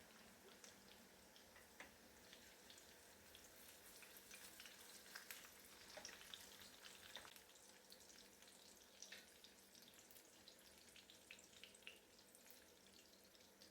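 Eggs frying in oil in a pan, a faint crackle of small scattered pops.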